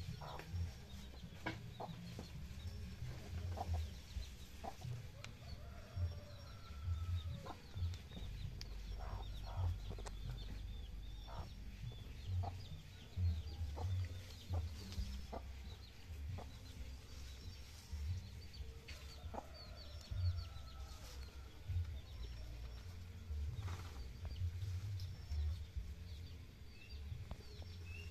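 Chickens clucking now and then in the background, with small birds chirping high up, over frequent low rumbling bumps.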